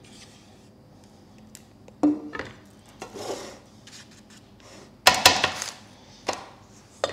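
Kitchen clatter: a metal saucepan clunks down onto a wooden table with a short ring about two seconds in, followed by a silicone spatula scraping and spreading cake batter in a paper-lined baking tin. Near the end come a few sharp knocks.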